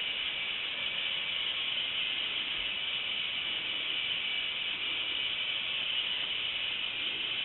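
Vintage K'Nex Screamin' Serpent roller coaster model running, giving a steady, unbroken whirring hiss.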